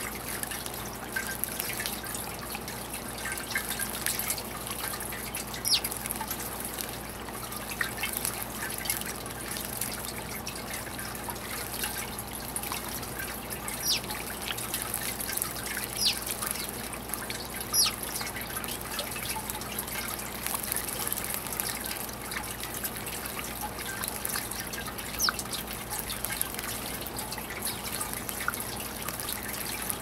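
Pump-driven garden bird-bath fountain: water trickling steadily into the basin, with a sharper drip or splash every few seconds.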